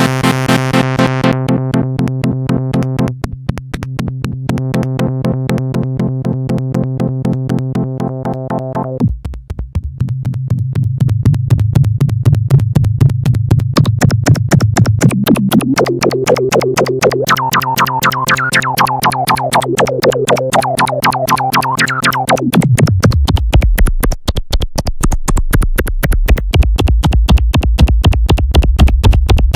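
Roland Juno-106 analog synthesizer playing a fast pulsing patch: held chords, then a bright tone that sweeps up and down in pitch about halfway through, before the sound drops to a deep pulsing bass near the end.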